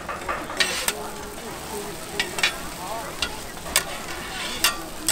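Food sizzling on a hot cooking surface while a metal spatula scrapes and strikes against it, with several sharp clinks spaced through the sizzle.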